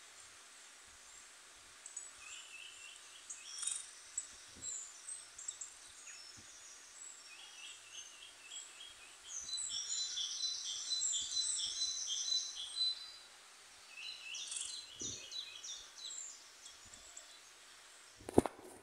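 Birds chirping in quick runs of short high calls, heaviest in the middle stretch, from a bird video playing on the phone the cat is watching. Near the end, one sharp knock as the phone is handled.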